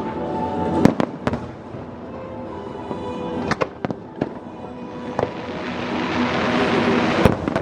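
Aerial fireworks bursting: a string of sharp bangs, with a rising crackling hiss building in the last couple of seconds before a final loud bang. Show music plays underneath.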